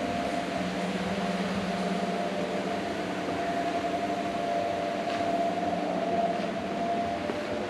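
Steady hum and hiss of electric fans running.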